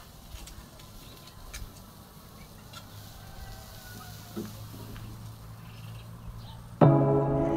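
Faint metal clicks of tongs and a knife handling beef on a charcoal grill, with faint bird calls in the background. About seven seconds in, music starts abruptly and much louder.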